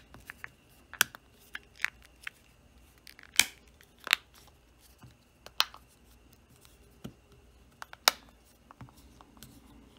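Plastic housing of a FLIR ONE Gen 2 thermal camera being pressed and snapped back together by hand: a series of sharp, irregularly spaced clicks and snaps.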